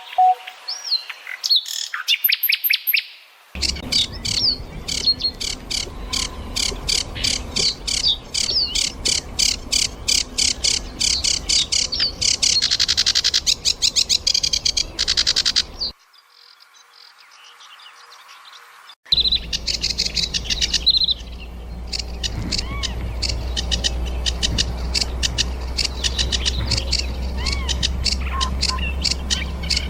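Birds chirping and calling in quick, repeated notes, from several separate recordings joined together, so the sound changes abruptly a few times.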